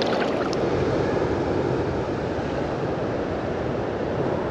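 Steady rushing noise of water pouring through a big river weir, the river running up after rain. A few light clicks near the start.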